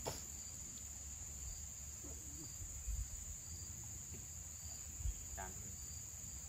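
Steady high-pitched drone of insects, with a faint chirp repeating about every two-thirds of a second. Two dull low thumps sound about three and five seconds in.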